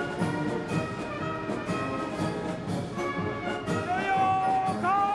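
Military brass band music with orchestral brass. Held notes change in steps, and near the end two notes slide up into long held tones.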